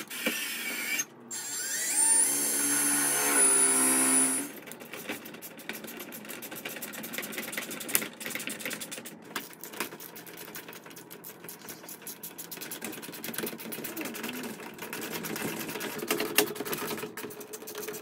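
Cordless drill running for about three seconds into the garage door bracket, its pitch rising as it spins up. It is followed by a long stretch of scattered light clicks and metallic rattles from hand tools and hardware.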